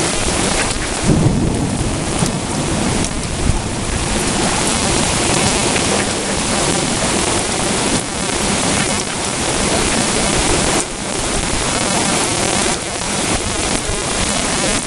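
Thunderstorm: heavy rain falling steadily, with a low rumble of thunder about a second in.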